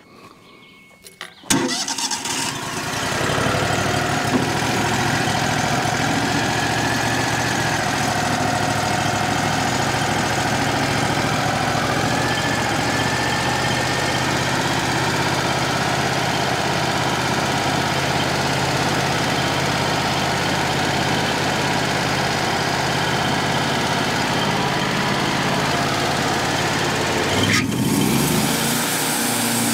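Wood-Mizer LT35HD portable sawmill's engine starting about a second and a half in, then running loud and steady, with its speed shifting near the end.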